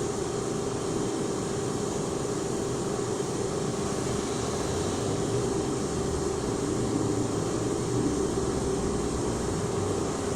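CNC lathe running steadily while machining a heavy-duty wheel: a constant hum with a steady mid-pitched tone, a little louder around the middle.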